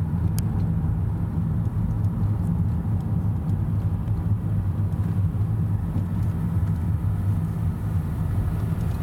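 A car being driven, heard from inside the cabin: a steady low rumble of engine and road noise.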